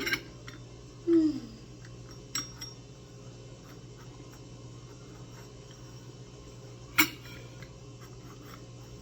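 Eating utensils clicking lightly against a plate and sauce dish while sushi is eaten, with one sharp click about seven seconds in. A short falling 'mmm' of the voice sounds about a second in.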